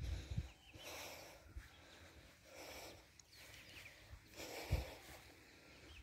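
A walker's breathing, coming in soft swells about every two seconds, with dull low thuds of footsteps and a few short chirps from a small bird.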